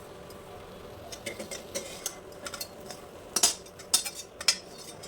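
Metal spoon scraping and clinking against a cooking pan as fried onion, tomato and whole-spice masala is scooped out. The clinks are scattered, starting about a second in, and the loudest come past the middle.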